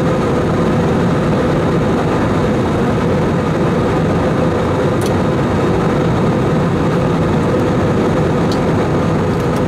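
A steady, loud engine drone with a constant hum, unchanging throughout, with a few faint clicks in the second half.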